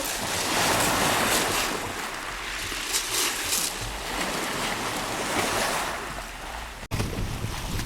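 Stormy sea surf: waves breaking and washing in, the loudest surge about a second in, with wind buffeting the microphone. The sound drops out for an instant near the end.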